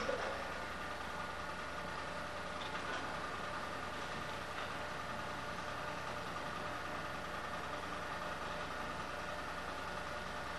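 An engine running steadily: an even drone with a faint steady hum above it.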